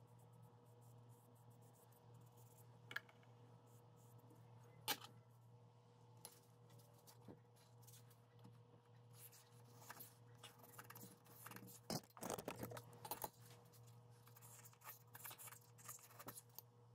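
Faint clicks and light scratching of a steel knife blank and a scribing tool against a granite surface plate as centre lines are scribed along the blade edge: a couple of single clicks, then a run of small scratches and clicks in the second half, over a steady low hum.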